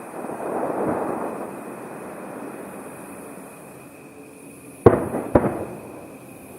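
Aerial firework shell bursting: a rolling rumble that swells in the first second and fades, then two sharp bangs about half a second apart near the end.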